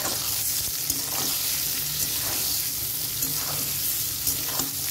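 Eggplant pieces sizzling in hot mustard oil in a metal kadai, with a metal spatula scraping the pan and turning them about once a second.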